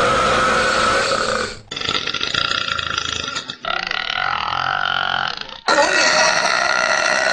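Women burping: a string of long, drawn-out burps, each held at a fairly steady pitch, spliced one after another with abrupt cuts, four in all.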